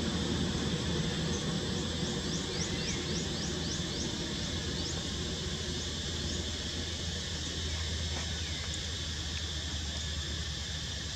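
Steady outdoor background of insects buzzing over a low rumble, with a quick series of a dozen or so high, sweeping chirps between about one and six seconds in.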